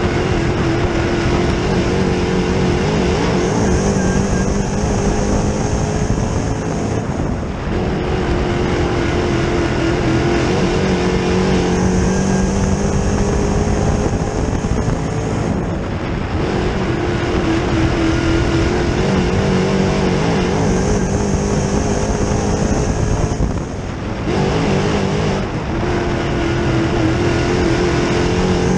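A dirt Late Model's sealed GM 604 crate small-block V8 running at racing speed, heard from inside the car. The revs climb down each straight and drop sharply as the driver lifts for the turns, about every eight seconds.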